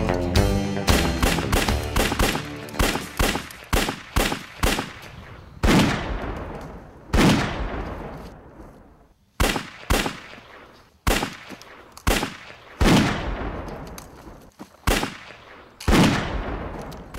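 Gunfire: a quick string of shots, then single shots about a second apart, each trailing off in a long echo.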